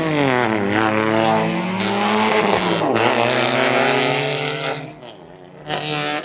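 Car engine revving hard, its pitch dipping and climbing again several times, then falling away near the end before one short rev.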